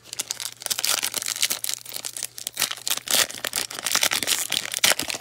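Plastic-foil trading-card pack wrapper crinkling and tearing as it is ripped open by hand, a dense, irregular crackle throughout.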